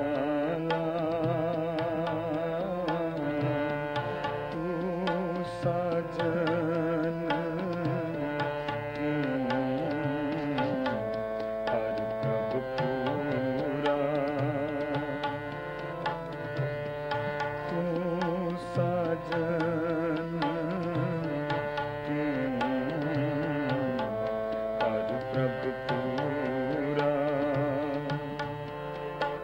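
Harmonium playing a kirtan melody over a steady tabla rhythm, an instrumental passage with no words.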